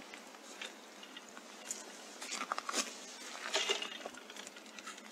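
Irregular light rustling with scattered small clicks and ticks, busiest about halfway through.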